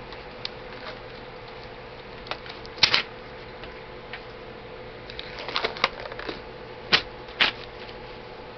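A few sharp clicks and knocks of hard objects being handled, the loudest about three seconds in and a pair near the end, over a steady low hum.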